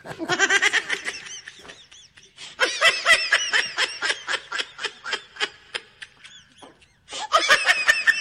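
Laughter sound effect: rapid, high-pitched giggling in three runs, the middle one the longest.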